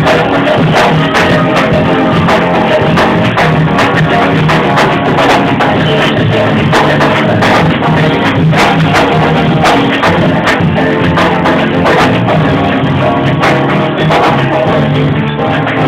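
Live worship band playing an upbeat song on acoustic guitar and drum kit, the drums keeping a steady beat.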